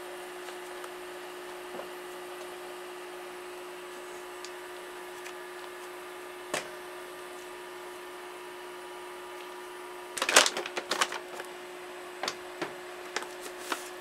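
A metal spoon clinking and scraping against a stainless steel bowl as lumps of rice dough are knocked off it. There is a quick run of sharp clinks about ten seconds in, then a few single clinks, over a steady hum.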